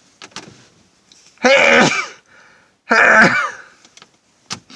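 A man sneezing twice, each sneeze a loud voiced burst about half a second long, the two about a second and a half apart, after a few short catching breaths.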